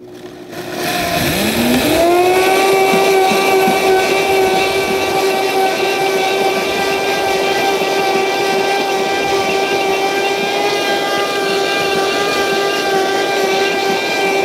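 Vitamix blender motor spinning up over about two seconds to a steady high whine, grinding dry rolled oats into oat flour.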